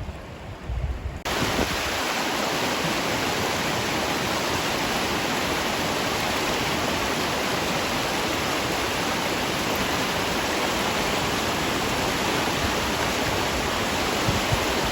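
Steady rush of river rapids, starting abruptly about a second in. Before it, brief gusts of wind buffet the microphone.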